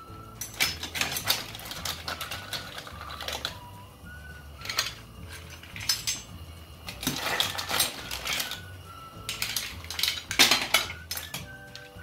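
Cooked mussel shells clattering against a steel pot and a ceramic plate as they are lifted out and piled up, in irregular bursts of clinks and rattles.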